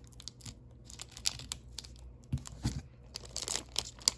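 Plastic blister packaging being crinkled and torn open by hand, with irregular crackles and snaps and a couple of low bumps about two and a half seconds in.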